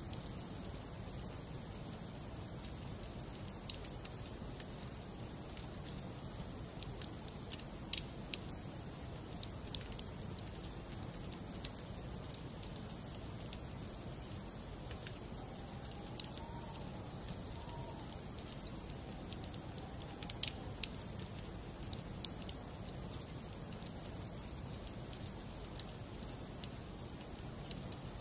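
Wood fire burning in a fireplace: irregular sharp pops and snaps of burning logs over a steady low rush of the flames.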